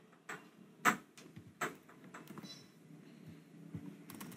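Computer keyboard keys clicking a few separate times, roughly one keystroke every half second to a second, the loudest about a second in.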